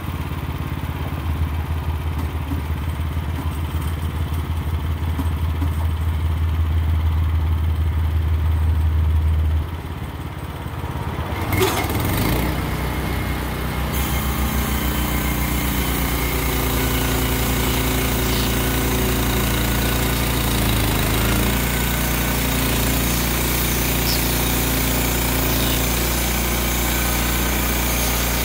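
Wood-Mizer LX25 bandsaw sawmill's gasoline engine running steadily, a short knock about twelve seconds in, then from about fourteen seconds the band blade cutting into a rotten hemlock log as the saw head is pushed along it, a steady hiss over the engine.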